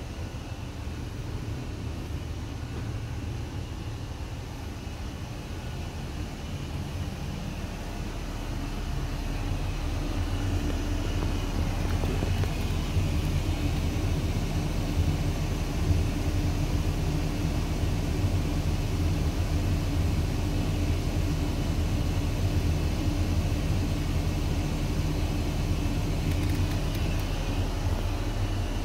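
Steady low engine drone with a constant pitch, growing louder about a third of the way in and then holding steady.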